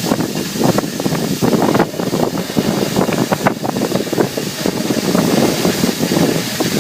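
Oxy-fuel cutting torch of a CNC flame-cutting machine hissing steadily as it cuts steel plate, with constant crackling from the burning cut.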